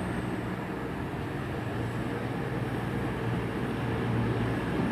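Cross Country Class 220 Voyager diesel-electric multiple unit's underfloor diesel engines running with a steady low hum, growing a little louder near the end.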